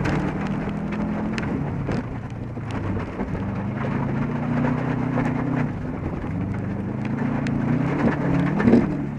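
Subaru Impreza STI rallycross car's turbocharged flat-four engine running hard on a dirt course, heard from inside the cabin. Its note rises and falls and breaks off briefly a few times, over a steady hiss of tyres on loose dirt and the patter of stones ticking against the body.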